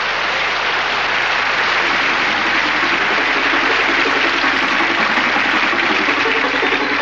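Audience applauding steadily, with music coming in faintly underneath about three seconds in.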